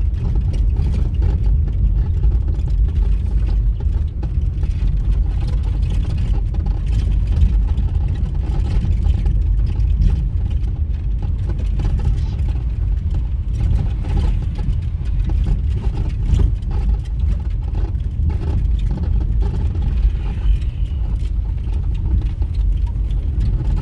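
Steady low rumble of a moving vehicle: engine and road noise that runs on evenly, with no distinct knocks or changes.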